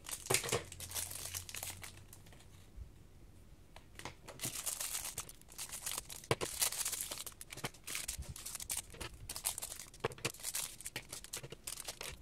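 Thin clear plastic sleeves crinkling and tearing as hands unwrap markers from their packaging, in repeated crackly rustles with a short lull about two seconds in.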